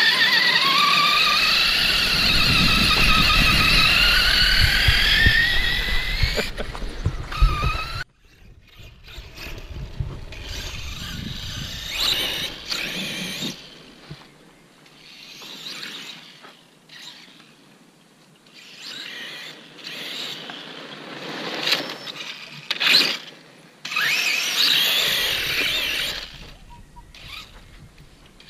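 Brushless electric RC truck motors whining, the pitch rising and falling with the throttle: loud and close for the first eight seconds, then after a sudden cut, fainter whines coming and going.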